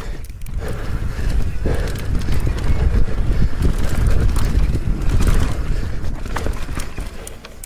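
A mountain bike riding fast down a rough trail: wind buffets the microphone in a heavy rumble, while the tyres crunch over rock and the bike rattles in scattered clicks and knocks.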